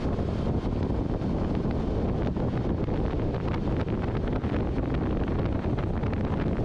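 Wind rushing over the microphone of a motorcycle riding at road speed: a steady, dense low rumble with the bike's running mixed in.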